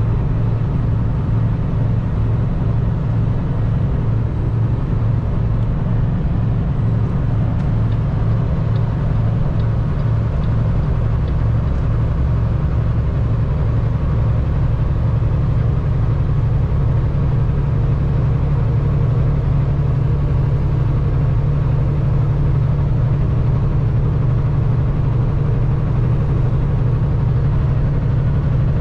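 Semi truck's diesel engine running steadily at highway cruise, a deep even drone with tyre and road noise, heard from inside the cab.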